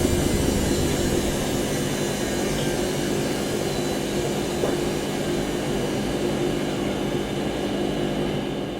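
Washing machine drum spinning on its spin cycle, giving a steady whirring hum over a rushing whoosh. It begins to fade at the very end.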